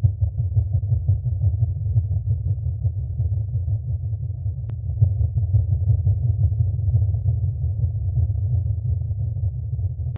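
Steady deep rumble with no highs, muffled and flickering slightly. It cuts off abruptly at the end.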